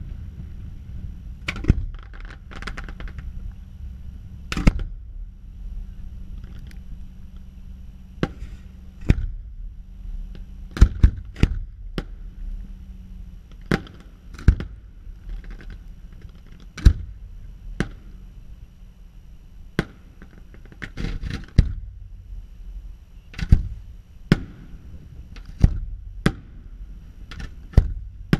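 Aerial firework shells launching and bursting: sharp bangs at irregular intervals, some coming in quick clusters of two or three, over a steady low rumble.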